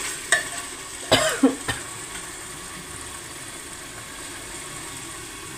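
A person coughs loudly once, about a second in. Under it, the spice masala is frying in hot mustard oil in an aluminium pressure cooker, a steady sizzle as it is stirred.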